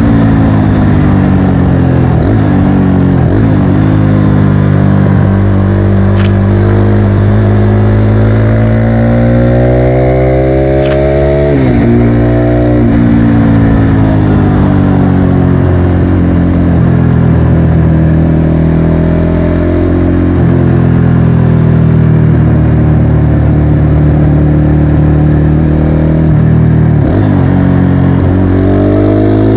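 Motorcycle engine under way, pulling up through the gears: its pitch climbs steadily and then falls sharply at each gear change, about five times.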